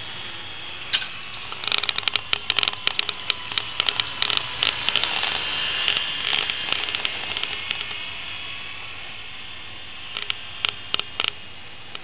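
Faint steady whine of a small electric RC helicopter, swelling a little around the middle as it flies close, under a hiss with bursts of sharp crackling clicks on the microphone.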